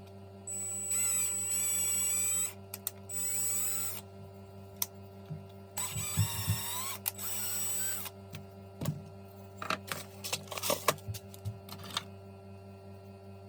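A handheld power drill runs in three short bursts of a couple of seconds each, its motor pitch sliding as the trigger is eased, then a run of light clicks and taps follows.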